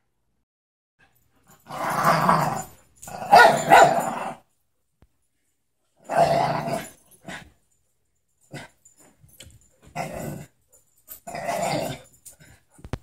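Dogs play-growling as they wrestle, in about five growling bouts of a second or so each with short quiet gaps between.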